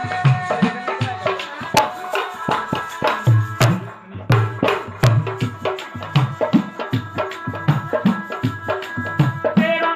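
Dholak, a rope-laced hand drum, played in a fast, even rhythm of deep bass strokes and sharper slaps, with sharp clicking percussion and held tones behind it. A voice begins singing near the end.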